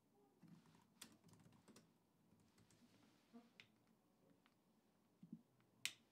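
Near silence with a few faint computer keyboard clicks, scattered and irregular, the sharpest one near the end.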